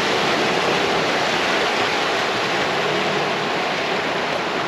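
A four-wheel drive pushing through a river crossing: a steady, loud rush of water washing and spraying around the vehicle.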